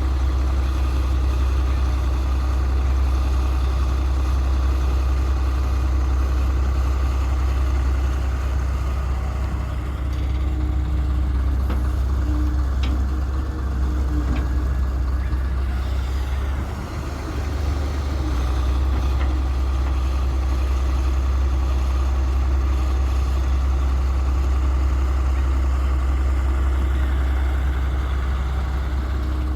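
Heavy diesel engine running steadily, with a short dip in level about seventeen seconds in.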